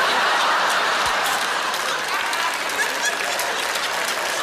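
Studio audience applauding, loudest at the start and slowly easing off.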